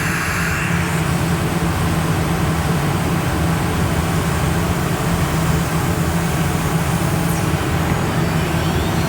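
Multicam 3000 CNC router machining a desk tabletop, its spindle cutting while the vacuum hold-down pump and dust extractor run, making a steady, even mechanical drone.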